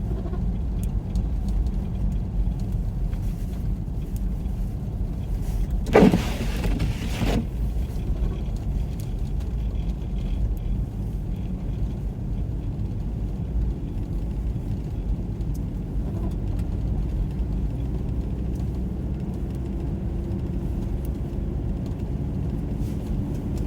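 Steady low rumble of a car's engine and tyres heard from inside the cabin while driving slowly on a snow-covered road. About six seconds in, a brief louder rushing sound with a rising tone rises over it.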